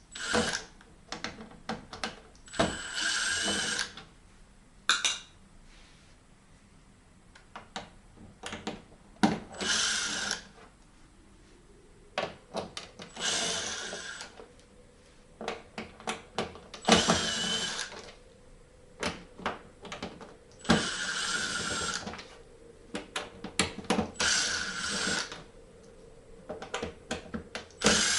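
Cordless Milwaukee drill backing screws out of a TV's back panel in short runs of about a second each, roughly eight times, its motor whining at a steady pitch. Clicks and clatter of handling and screws fill the gaps between runs.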